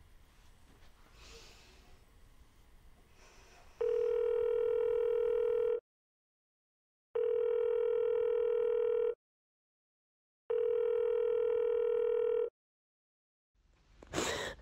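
Telephone ringing tone heard down the line: three long, steady beeps of about two seconds each with pauses between them, as a call back rings out unanswered.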